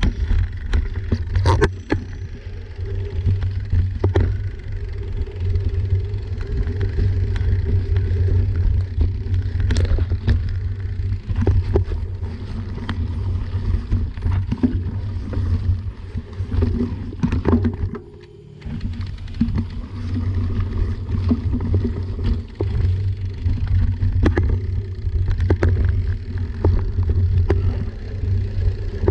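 Mountain bike riding over a dirt forest trail, heard from a camera mounted on the bike: a steady low rumble with frequent knocks and rattles as the knobby tyres run over roots and ruts. The rumble drops away briefly about two-thirds of the way through.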